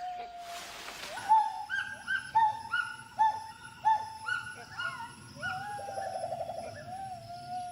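Gibbon calling: a series of short pitched hoots, many swooping sharply up and down, with a fast warbling trill about six seconds in. A brief hiss of noise comes just before the hoots start, and a thin, high, steady tone runs underneath from then on.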